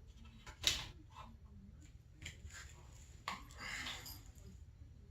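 Hand-tool work on snowmobile suspension hardware: a few sharp metal clicks and knocks, the loudest about a second in and again a little past three seconds, the second followed by a brief scraping rustle.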